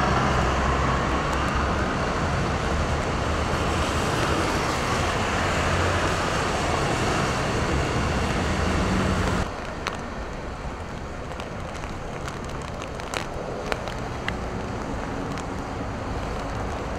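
Heavy traffic on a rain-soaked expressway: tyres hissing on wet pavement over a low engine drone. About nine and a half seconds in it cuts to a quieter, steady wash of street noise and falling rain with a few sharp ticks.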